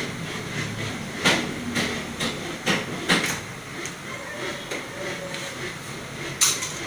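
Irregular sharp clicks and knocks of hands and tools working on a top-load washing machine, several close together in the first half and one more near the end, over a steady hiss.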